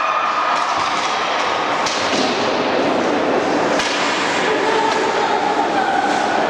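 Youth ice hockey game heard in the rink: a steady din of play and spectators' voices, with two sharp knocks about two and four seconds in.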